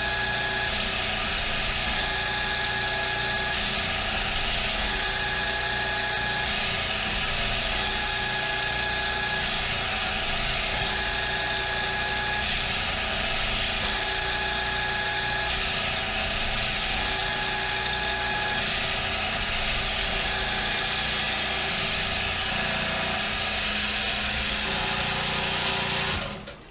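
CNC milling machine's spindle and gearbox running steadily as it peck-drills a hole with a larger drill bit under coolant, the tone shifting slightly every couple of seconds as the drill goes in and out. There is no bogging of the gearbox under load, which the owner credits to the new, slipperier coolant. The machine sound cuts off near the end.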